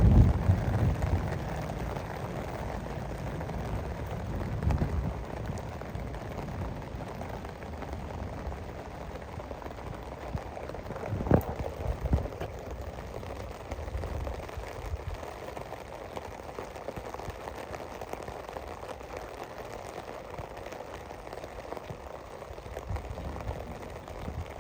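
Steady rain falling, with deep low rumbles near the start and again about five seconds in, and one sharp tap about eleven seconds in.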